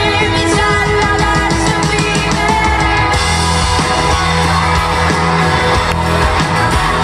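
Live rock band playing loud: electric guitars, bass guitar and drums, with a steady drum beat and the cymbals growing brighter about three seconds in.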